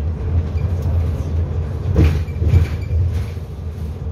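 Steady low rumble of a city bus on the move, heard from inside the cabin, with rattles and a sharp clunk about two seconds in.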